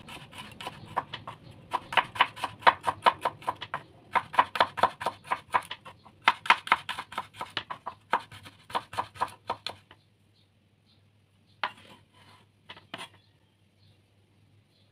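Cleaver thinly slicing garlic cloves on a wooden cutting board: quick runs of knife taps on the board, about six a second, with short pauses between runs. The slicing stops about two-thirds of the way through, and a few lighter knocks follow.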